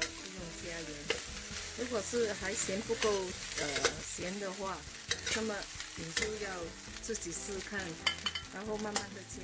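Metal spatula repeatedly scraping and knocking against a stainless steel wok as fried rice is tossed, with squeaky rasping scrapes over the sizzle of the frying rice.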